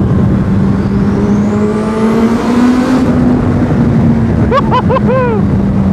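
Motorcycle engine accelerating hard, its pitch rising over the first three seconds along with a high climbing whine, over a loud steady rush. About four and a half seconds in, a rider whoops four times.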